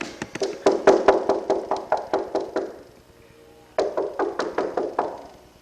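Rapid knocking, about five or six sharp knocks a second, in two runs with a pause of about a second between them.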